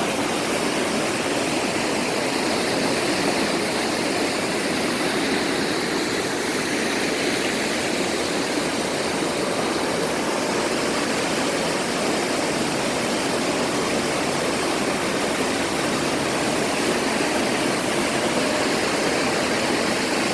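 Mountain stream rushing over rocks, a steady, unbroken water noise.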